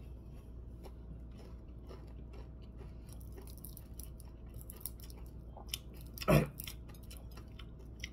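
A man chewing a mouthful of fried fish and rice, with small crunches and wet mouth clicks, and one louder crunch about six seconds in.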